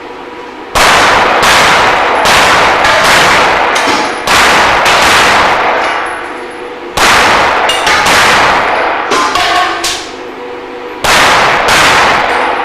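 Pistol shots fired rapidly in about four strings of several shots each, roughly two to three shots a second, with short pauses between strings. Hit steel plates clang and ring.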